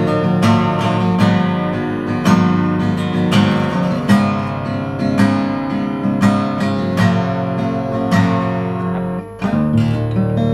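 Steel-string acoustic guitar strummed in ringing chords, a strum every half second to second, with a short break about nine seconds in. The strings have just been wiped with Fastfret string cleaner to make the tone brighter and clearer.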